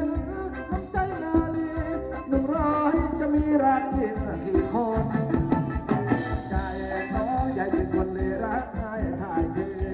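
Live Thai ramwong band music: a sung melody over keyboard and a steady drum beat.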